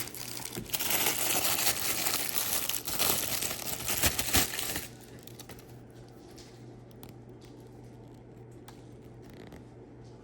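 Plastic toy packaging crinkling and rustling as an action figure is taken out, for about five seconds, then quieter handling with a few faint clicks.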